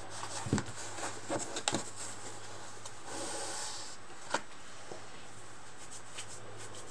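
A clear acrylic trading-card case and paper cards handled on a table: several light clicks and taps in the first two seconds, a short sliding rub about three seconds in, and one sharp knock just after four seconds.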